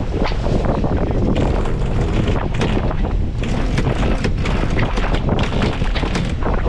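Wind buffeting the microphone in irregular gusts on a sailboat's deck, over a steady low rumble.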